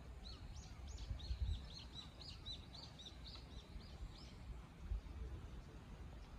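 A small bird chirping a quick series of short high notes, about three or four a second, for roughly four seconds, over a faint low rumble.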